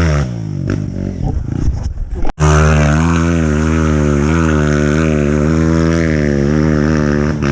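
Off-road motorcycle engine revving unevenly under load for about two seconds, then an abrupt cut, after which the engine runs steadily with a slight rise and fall in pitch.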